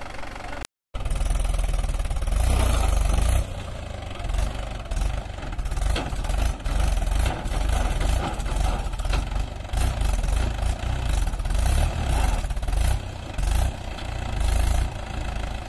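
Diesel engine of a red Mahindra tractor running hard under load as it hauls a loaded trolley through deep soft dirt. The engine rumble is heavy and uneven.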